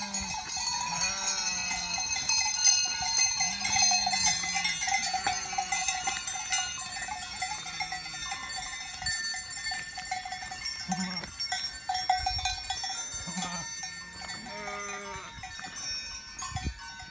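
Many cowbells on grazing alpine livestock clanking and ringing together, with short livestock calls every second or two.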